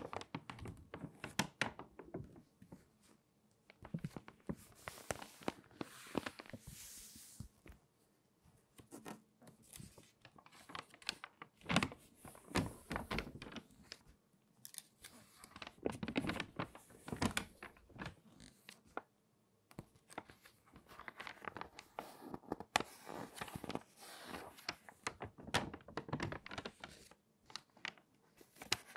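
Crinkly, water-damaged magazine pages being turned by hand, one after another. Each turn is a burst of crinkling and crackling with sharp clicks, coming every few seconds.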